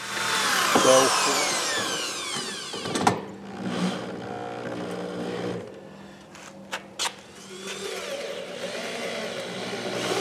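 Power drill driving screws into the wooden brooder and its stand: the motor whines and falls in pitch over the first few seconds, then runs steadily at a lower hum, with a couple of sharp clicks.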